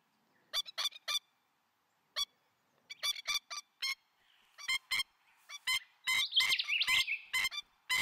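Sulphur-crested cockatoo calls: short, clipped notes in quick groups of two or three, then a longer, louder, harsher call about six seconds in.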